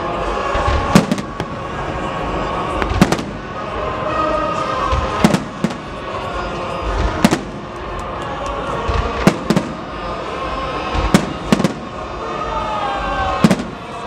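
Professional fireworks display: aerial shells firing and bursting as sharp bangs, often in close pairs, every second or two.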